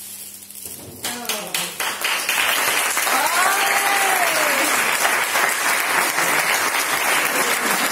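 Applause from the children and audience: a few separate claps about a second in build quickly into steady applause. One drawn-out voice calls out over it, rising and then falling, about three seconds in.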